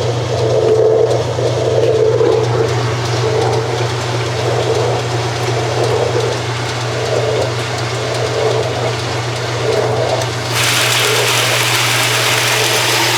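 1993 Kenmore 80 Series top-load washer running during a water test: a steady motor hum with a rhythmic swishing pulse about every 1.3 seconds. About ten seconds in, a steady rush of water suddenly starts.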